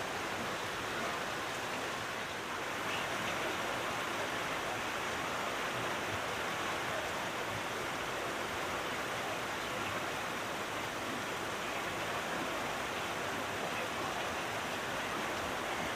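Heavy rain: a steady, even hiss of a downpour on roofs and pavement, with water streaming off the edge of a roof overhang.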